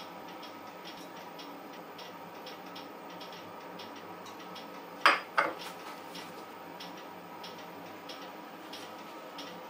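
Two sharp clinks close together, about five seconds in, from the ceramic serving plate being handled, over faint, regular ticking at about three a second.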